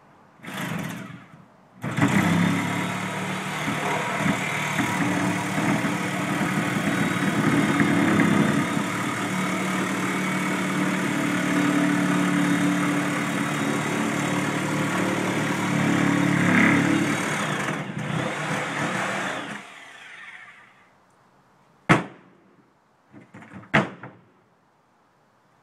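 Corded Sawzall reciprocating saw cutting into a projection TV: a short burst, then running under load for about seventeen seconds before winding down. Two sharp knocks follow near the end.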